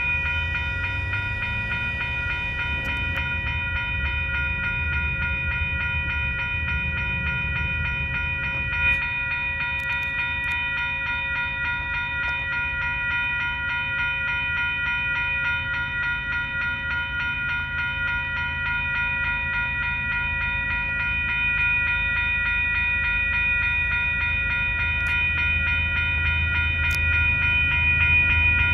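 Railroad grade crossing warning bell ringing without a break as a train approaches, over a low rumble from the oncoming train that grows louder near the end.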